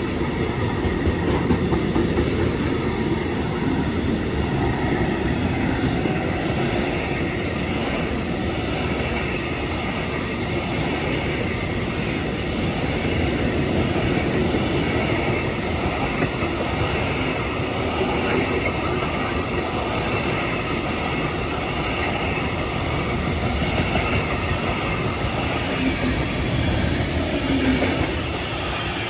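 Intermodal freight train of container flat wagons rolling past: a steady rumble of steel wheels on rail with clickety-clack over the joints, dropping off near the end as the last wagons go by.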